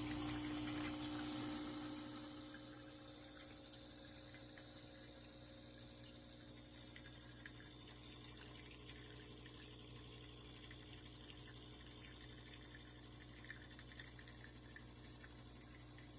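De'Longhi Dedica Duo espresso machine's pump humming steadily, then dying away about two seconds in; after that only a faint trickle of liquid with a low steady hum.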